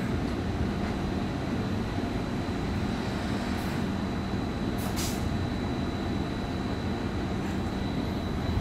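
Class 73/9 electro-diesel locomotive's MTU diesel engine running steadily while the loco stands, a continuous low rumble with a faint steady high whine. Two short hisses come about three and a half and five seconds in.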